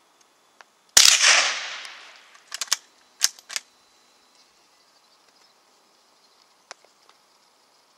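A single rifle shot from a scoped rifle about a second in, its report dying away over a second or so, followed by a few short sharp clicks.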